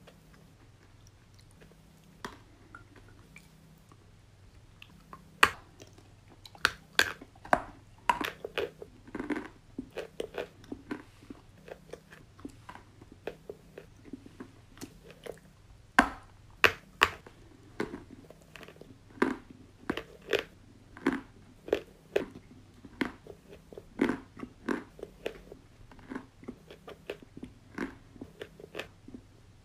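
White chalk sticks being bitten and chewed: sharp, crisp crunches and snaps, only one or two at first, then several a second from about five seconds in.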